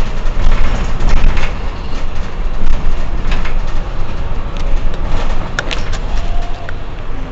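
Mercedes-Benz Citaro C2 Euro 6 city bus's rear-mounted diesel engine idling while the bus stands still, a heavy low rumble that eases over the second half. There are a few short sharp clicks near the end.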